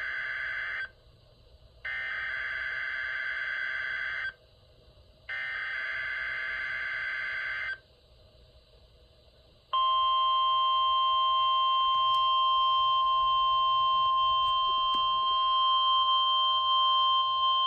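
NOAA Weather Radio test signal: three raspy SAME digital header bursts of about two and a half seconds each, the first already under way, separated by one-second gaps. After a two-second pause, the steady single-pitch 1050 Hz warning alarm tone starts about ten seconds in and keeps sounding.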